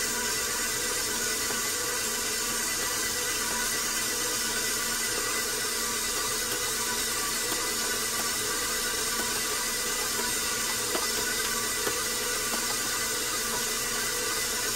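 Electric stand mixer running steadily at an even pitch, its dough hook kneading bread dough in a stainless steel bowl. Two faint clicks come a few seconds before the end.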